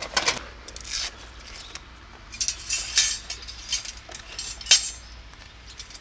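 Steel frame of a Yamaichi Hagane HITAKI folding fire pit clinking and rattling as it is pulled from its carry bag and unfolded. The metal knocks are irregular, with the sharpest about three quarters of the way through.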